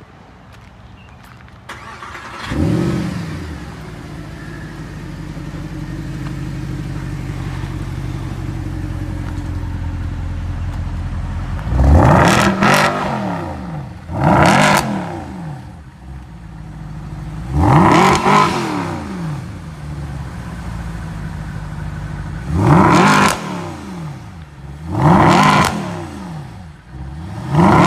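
Mercedes SLS AMG's 6.2-litre V8 starting up with a short flare of revs, settling to a steady idle, then blipped about six times, each rev rising sharply and falling back to idle.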